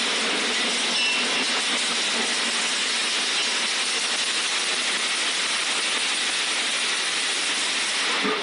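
Chain link mesh weaving machine running, a steady, even hiss-like machine noise with no distinct rhythm.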